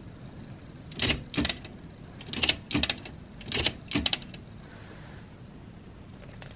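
Vintage Olympia Deluxe manual typewriter being typed on: six sharp clacks of the keys and typebars, coming in three quick pairs over about three seconds.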